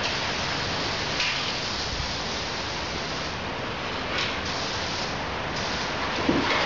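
Steady rain and running water: a continuous, even hiss.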